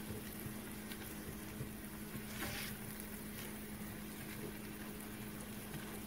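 Diced onion and garlic sizzling softly in oil in a stainless steel frying pan as a spatula stirs them, with one brief scrape of the spatula about two and a half seconds in, over a steady low hum.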